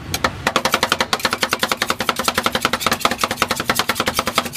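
Metal spatulas chopping quickly on a stainless-steel cold-plate tray while working a rolled-ice-cream mixture, a rapid run of sharp metallic taps, many a second, over a steady low tone.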